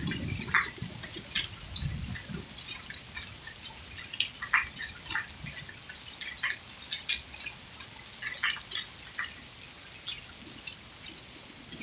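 Scattered, irregular drops and light ticks of water from a storm, with the tail of a thunder rumble dying away at the start.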